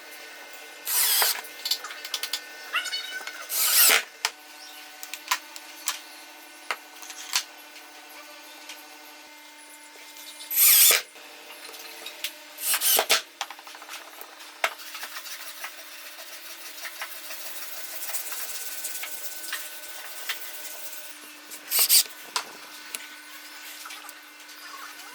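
A power tool run in short bursts of about a second, five times, over a steady hum.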